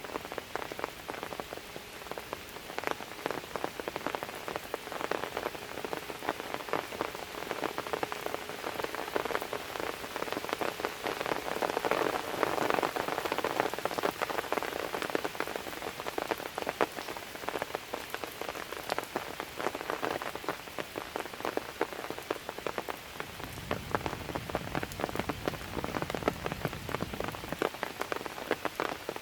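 Steady light rain with many close raindrops ticking on hard surfaces, a little heavier about halfway through. A low rumble joins it for a few seconds near the end.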